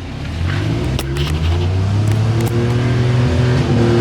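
Vehicle engine being revved up, its pitch climbing steadily for about two seconds and then held at high revs, with a few short clicks about a second in.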